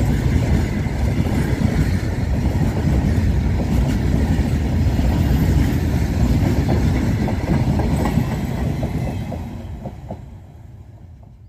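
Freight train wagons rolling past close by: a loud, steady rumble of steel wheels on rail, with repeated clicks as the wheels cross rail joints, fading away over the last two seconds as the end of the train moves off.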